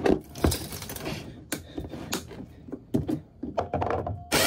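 Irregular clicks, knocks and light metallic clatter as hands work a boat's engine control lever and its push-pull cable. Near the end a loud, steady rushing noise cuts in abruptly.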